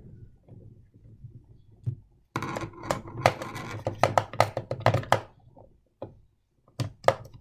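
Small hard parts of a model train being handled and worked apart: a dense run of sharp clicks and rattles for about three seconds, then a few separate clicks near the end.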